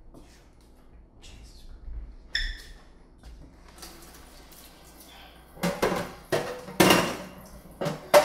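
Dishes and cups clattering and knocking in a stainless steel kitchen sink with the tap running. A single clink comes about two and a half seconds in, and a run of loud, irregular knocks fills the last few seconds.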